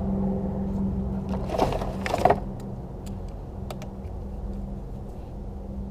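A clatter of metal tools being handled, loudest about one and a half to two seconds in, over a steady low hum.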